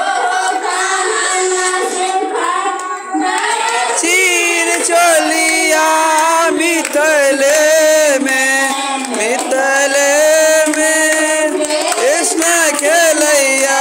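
Women singing a devotional song into a handheld microphone, the lead voice amplified, with children and other women singing along in a group.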